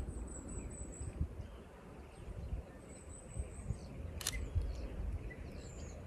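Sony A6700 shutter clicking once, a little over four seconds in, firing the wirelessly triggered off-camera flash. Small birds chirp high and thin around it, with a short trill, over a low rumble of wind noise.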